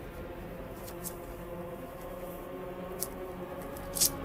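Pages of a hardcover comic omnibus being turned by hand: quiet paper handling with a few soft clicks, and a slightly louder tap about four seconds in as the book settles open on a new spread.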